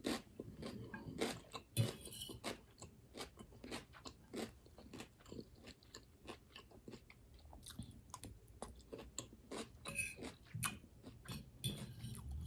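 A person chewing a mouthful of raw garden salad vegetables: a steady run of small crisp crunches, several a second, close to the microphone.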